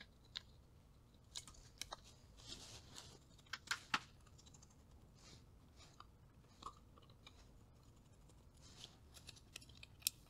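Faint clicks, ticks and light scrapes of a screwdriver working small screws out of a vintage transistor radio's chassis and fingers handling its plastic case, with a couple of sharper ticks about four seconds in.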